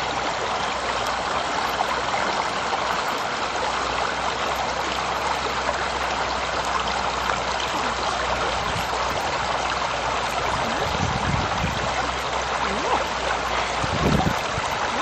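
Shallow creek water running steadily over a rocky riffle.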